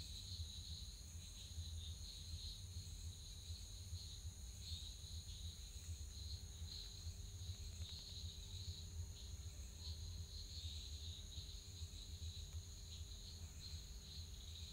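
Crickets chirping in a steady, pulsing high trill over a low, steady hum.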